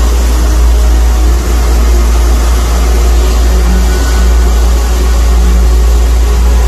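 Wind buffeting the microphone over the steady running of a motor boat at speed, with the rush of its churning wake. The sound is loud and unbroken.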